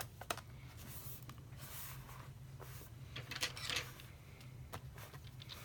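Faint handling noises: a few light clicks and soft rubbing as a MacBook Pro's bottom case is pressed down into place, over a steady low hum.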